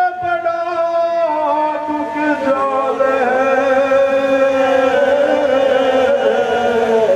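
A man singing a Hindi devotional bhajan, drawing out long held notes that slide down in pitch in steps.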